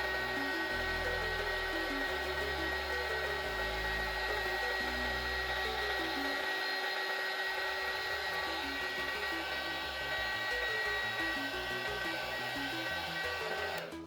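A small electric motor whirring steadily with a high whine, over background music with a stepping bass line; the whirring cuts off at the very end.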